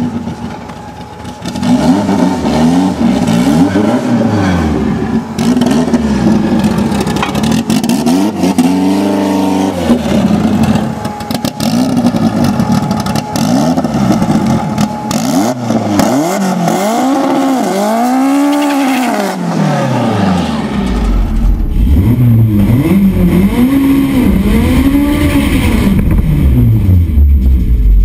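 Mitsubishi Lancer Evolution VIII drag car's turbocharged four-cylinder engine revving up and down over and over, each rev a rising then falling sweep. About three quarters of the way through, the sound turns deeper and duller, with a heavy low rumble, as heard from inside the car.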